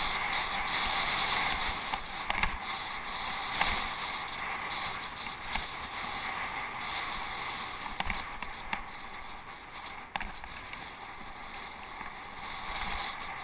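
Bicycle riding along a rough off-road track, heard through a head-mounted action camera: a steady rush of tyre and wind noise with scattered sharp knocks and rattles from bumps, the loudest about two and a half and three and a half seconds in.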